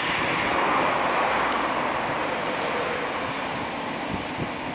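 Boeing 737-800's CFM56-7B jet engines at takeoff thrust during the takeoff roll, heard from a distance as a steady rushing noise that is loudest about a second in and eases slightly after. A few low wind bumps on the microphone come near the end.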